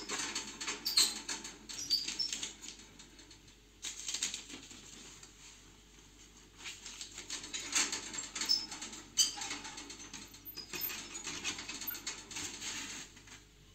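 A British Chinchilla kitten scrabbling and rustling inside a cardboard box packed with crumpled paper, in four bouts of a few seconds each with short pauses between.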